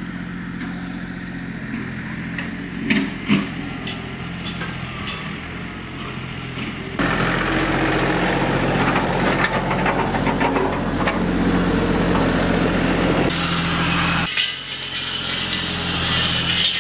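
An engine idling steadily, with a few sharp clicks. About seven seconds in, a louder tractor engine runs while its rear box blade scrapes through loose dirt. Near the end this gives way to a hissing sound.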